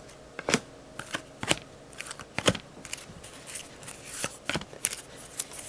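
Baseball trading cards being flipped through one at a time, each card snapping and sliding against the stack in sharp, irregular clicks, about two a second.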